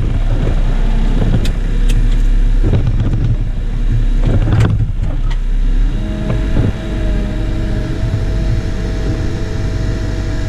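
Caterpillar wheel loader's diesel engine running steadily, heard from inside the cab, with a few sharp knocks in the first half. About six seconds in, a steady whine joins the engine sound.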